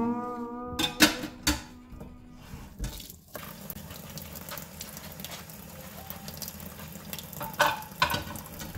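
Kitchen tap turned on about three seconds in, running steadily into a stainless steel sink as dishes are rinsed. A few clinks and knocks of dishes against each other and the sink come before and near the end; guitar music fades out at the start.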